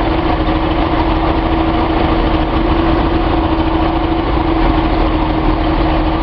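Datsun 280Z's L28 straight-six engine running steadily at a constant speed on a test stand, with a steady hum over rapid, even firing pulses. It is on a trial run with the dual-coil distributor's trigger lead moved to a different connector, to chase a chugging, rough-running fault.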